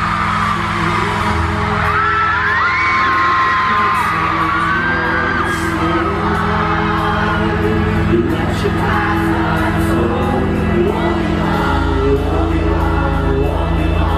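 Loud live pop-rock music over a concert sound system, with singing and fans whooping and screaming.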